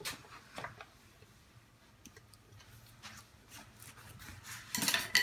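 Scattered light knocks and rubbing, with a louder clatter near the end.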